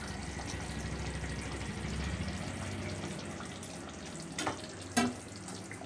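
Rohu kalia gravy simmering and bubbling in an iron kadai as the fried fish pieces are laid into it, with two sharp clinks of a metal spatula against the pan near the end.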